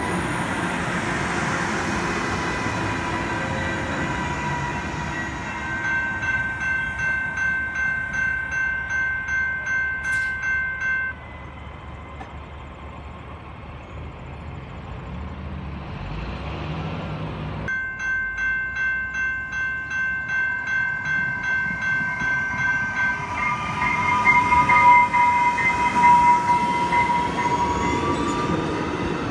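Electric commuter train passing a level crossing, its motors giving a high whine, while the crossing bell rings steadily at about two strokes a second. The sound drops suddenly about a third of the way through to a quieter, more distant train, then the bell and the whining train return, loudest near the end.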